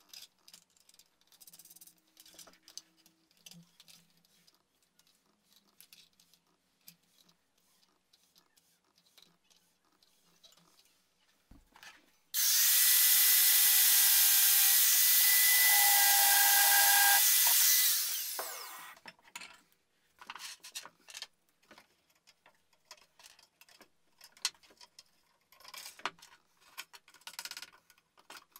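Angle grinder with a cut-off disc cutting through a metal rod clamped in a bench vise: a loud, steady grinding whine that starts suddenly about twelve seconds in, runs for about five and a half seconds, then winds down. Before and after it, scattered light clicks and knocks.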